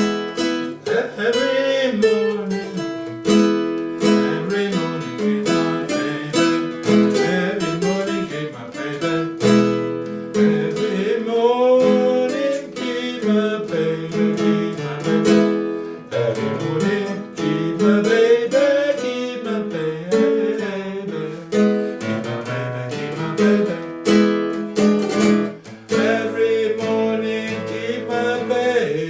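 Acoustic guitar strummed, with a voice singing over it.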